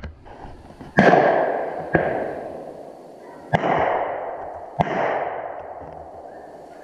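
Four gunshots in two pairs about a second apart, each followed by a long rolling echo through the woods; the first is the loudest.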